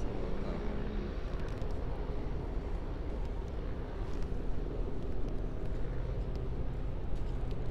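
Cessna Grand Caravan EX floatplane's turboprop engine and propeller running at low taxi power, a steady drone.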